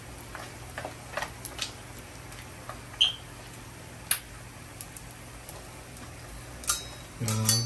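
Pork skin chicharron deep-frying in hot oil in a wok: a steady faint sizzle with scattered sharp pops and crackles as the skin puffs, the loudest about three and four seconds in. A short low hum of a voice comes near the end.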